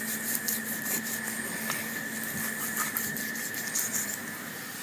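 Butcher's knife cutting and scraping around a pig's leg joint: a run of short scrapes and clicks over a steady background hum.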